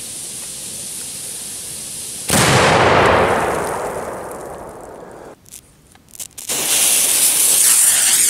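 Ground firework fountain hissing as it sprays sparks, then a loud bang about two seconds in that dies away over a couple of seconds. Near the end another loud, high hiss starts suddenly.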